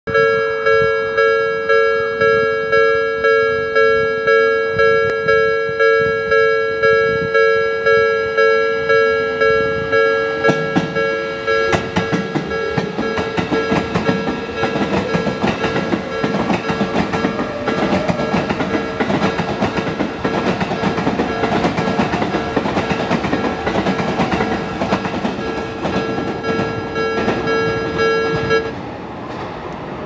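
Japanese level-crossing warning bell ringing steadily at about one and a half strikes a second. From about ten seconds in, an electric commuter train passes over the crossing, its running noise and wheel clatter rising under the bell. The bell stops shortly before the end.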